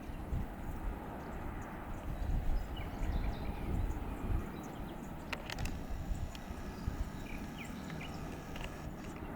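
Outdoor ambience: wind gusting on the microphone as an uneven low rumble, with small birds chirping briefly here and there and a couple of sharp clicks about five and a half seconds in.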